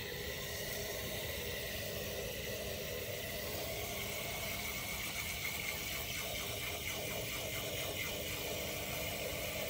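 Garden hose spray nozzle running water into a metal watering can of compost, a steady hiss of water filling the can to make compost tea for fertilizing.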